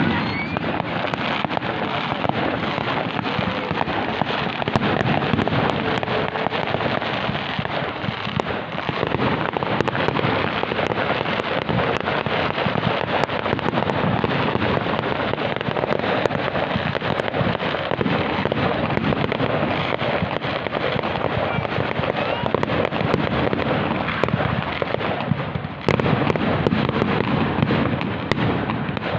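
Fireworks display: a dense, unbroken barrage of bangs and crackling bursts, with a brief lull near the end followed by a fresh loud burst.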